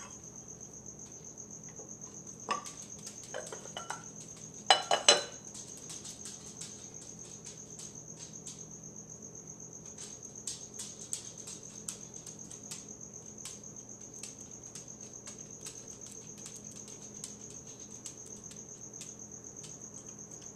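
Steady high-pitched cricket chirring, pulsing evenly. A few clinks of dishes and cutlery cut in, once about two and a half seconds in and louder in a quick cluster about five seconds in.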